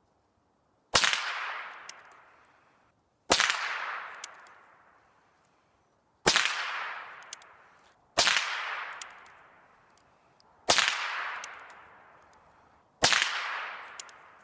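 Six single shots from a suppressed Chiappa Little Badger .22 LR single-shot rifle, spaced about two to three seconds apart. Each is a sharp crack with a reverberating tail that fades over about two seconds. A faint tick follows about a second after several of the shots.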